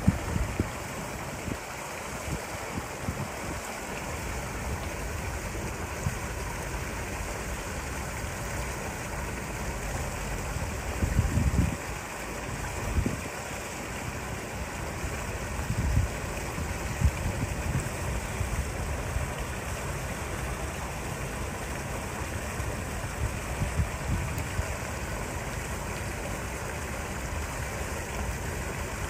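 Steady rush of running water in a seal pool, with a few short low thumps partway through.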